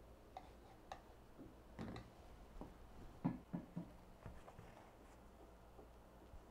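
Light, scattered clicks and taps from handling a small metal tool against a gessoed canvas and shifting the canvas on cardboard, with three quick knocks about three seconds in.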